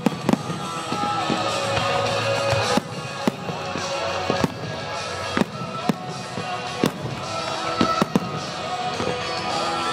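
Fireworks exploding in sharp, irregular bangs about once a second or so, over music playing throughout.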